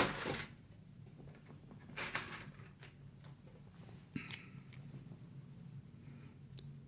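Small metal handling sounds from working a shim into a lock to disassemble it: short scrapes and rattles at the start, about two seconds in and about four seconds in, with a sharp click and faint ticks between.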